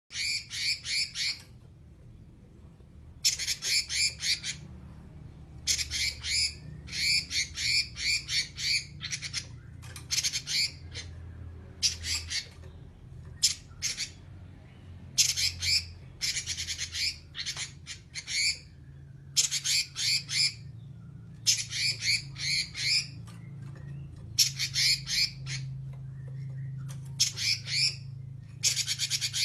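Pekin robin (red-billed leiothrix) giving its fast rattling 'nyerecet' call in repeated bursts of about a second each, with short pauses between, over a faint low hum.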